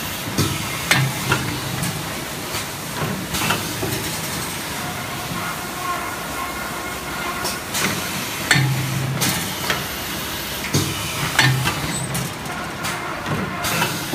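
Film shrink-wrap packaging machinery running: a steady mechanical hiss and hum with irregular clacks and knocks every second or so.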